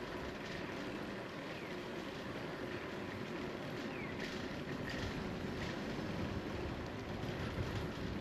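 Steady low rumble of wind on the microphone and bicycle tyres rolling on asphalt while riding, with a few faint short high chirps.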